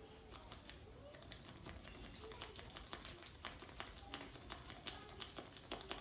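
Hands massaging an oiled head: an irregular run of light, sharp taps and clicks from fingers and palms working the scalp and around the ears, sparse at first and several a second from about two seconds in.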